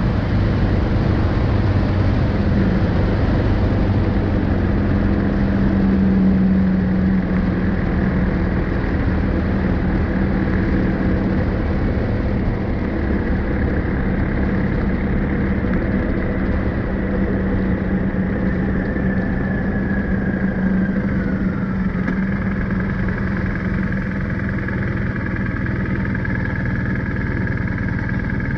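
BMW R1250GS Adventure's boxer-twin engine running under way, with wind rush on the front-mounted action camera's microphone. The wind noise thins as the bike slows into town, and a high whine falls in pitch about three-quarters of the way through.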